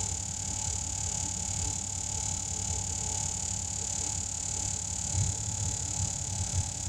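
Air compressor running steadily while air hisses into a tire being inflated.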